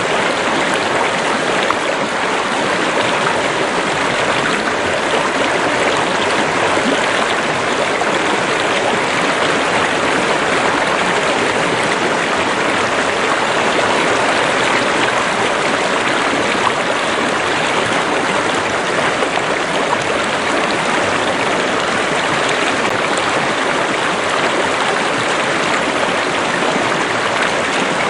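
Steady rushing of a stream, water running continuously with an even, unbroken hiss.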